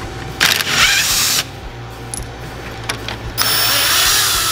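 Cordless power tool spinning a 10 mm socket to back out bolts on the truck's front trim. It makes two whining runs of about a second each, the first about half a second in and the second near the end.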